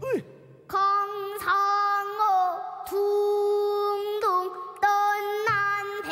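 A girl singing a pansori danga in long held notes that bend at each change of pitch, accompanied by a few sharp strokes on a buk barrel drum.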